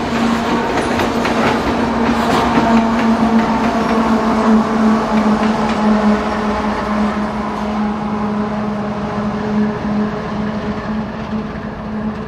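Loaded coal train passing: wheels clacking over rail joints for the first few seconds, then the rear-end diesel locomotive going by with a steady engine drone that slowly fades as the train moves off.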